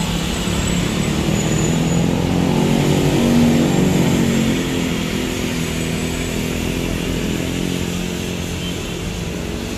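A minibus passing close, its engine note swelling to a peak about three and a half seconds in and then fading, with the hiss of tyres on the wet road.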